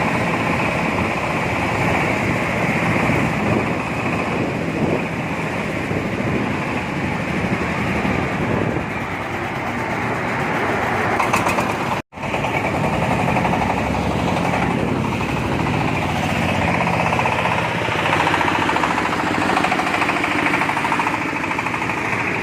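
Corn sheller driven by a 26 HP diesel engine, running steadily under load as it threshes unhusked corn cobs, with a dense rapid pounding. The sound drops out for an instant about halfway through.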